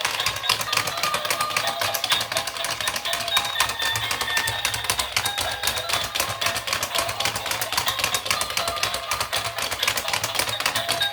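Fast, dense clicking that stays even throughout, with a high, tinkly tune of short stepping notes over it.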